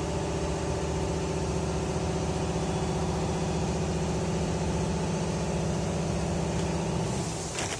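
A small excavator's diesel engine running steadily at one pitch under hydraulic load. The sound drops off a little after seven seconds.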